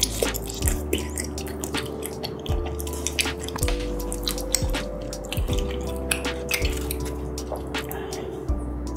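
Close-up wet chewing and mouth clicks of someone eating tteokbokki (spicy Korean rice cakes), with chopsticks working in the sauce near the end. Background music with sustained notes and a soft low beat plays under it.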